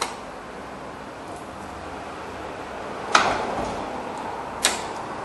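Metal clicks and clacks from a rear drum brake assembly as the shoes are pulled apart against their springs and the star adjuster is seated: a sharp click at the start, a louder clack with a brief ring about three seconds in, and another click a second and a half later.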